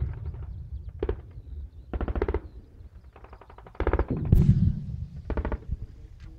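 Automatic weapons firing in several short, rapid bursts, with one loud bang about four seconds in followed by a low rumble.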